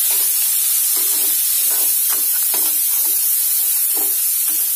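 Chopped onions sizzling as they sauté in hot butter and oil in an aluminium kadhai, stirred fast with a metal spatula that scrapes the pan about twice a second.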